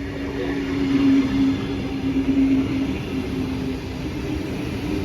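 Train running past: a steady low hum over the rumble of its wheels, swelling to its loudest about a second in.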